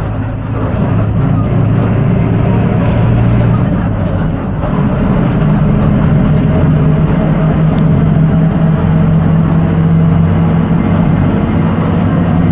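Diesel engine of a Volksbus/MAN 17-230 OD city bus running under way, its note stepping up about four seconds in as the engine speeds up.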